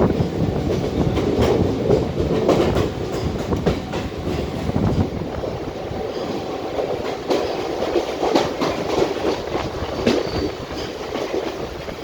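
Mumbai local train running past, its wheels clattering over the rail joints with a heavy rumble that eases about halfway through.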